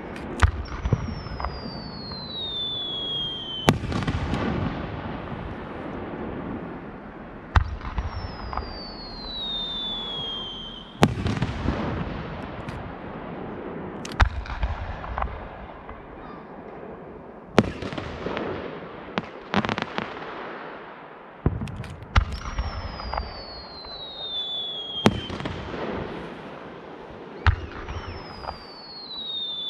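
Aerial firework shells bursting in sharp booms about every three to four seconds, each followed by a rumbling, crackling tail. A high whistle sliding down in pitch over a couple of seconds sounds four times between the bursts.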